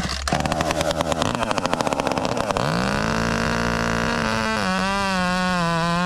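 Husqvarna T540 XP two-stroke gas top-handle chainsaw ticking over at idle, then revving up quickly to full throttle about two and a half seconds in. A couple of seconds later the pitch drops slightly and wavers as the chain bites into dead bigleaf maple and the saw cuts under load.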